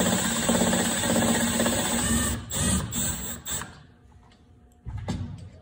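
Milwaukee cordless drill running steadily, backing out the screw of a valve spring compressor to release the valve spring's tension after the keepers are set. It stops after about two and a half seconds, gives a couple of short blips, and a light knock follows near the end.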